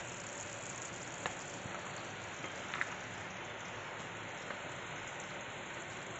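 Tomato-and-pea curry gravy boiling in a pan, a steady bubbling hiss, with a few faint clicks as a wooden spatula stirs it.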